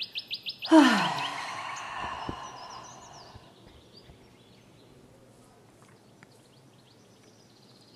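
A woman's long sighing exhale through the mouth about a second in, breathy, with her voice sliding down in pitch as it fades over a couple of seconds. Just before it a small songbird gives a fast high trill, and faint bird chirps carry on afterwards.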